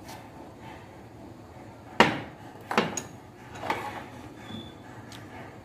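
Kitchen counter clatter: a glass jar, a spoon and condiment bottles being handled and set down, with three sharp knocks about two, three and nearly four seconds in, the first the loudest.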